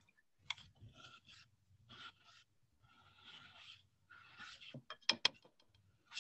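Plastic spoon scraping and stirring a cornstarch-and-water mixture in a bowl, in short uneven strokes, with a couple of sharp taps about five seconds in.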